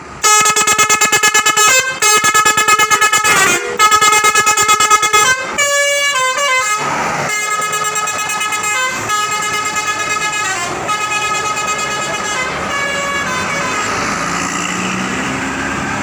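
Intercity bus "telolet" horn: a multi-tone melodic air horn playing a rapidly pulsing tune that switches pitch every second or two. It is loud for about five seconds, then goes on more faintly until about 13 s in. Engine and road noise rises as the coach pulls away near the end.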